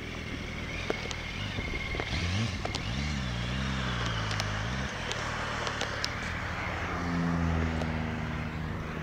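Sport motorcycle engine at low speed, revved up and down a few times from about two seconds in, then cut off abruptly about five seconds in. After that, a steadier engine tone with road and wind hiss.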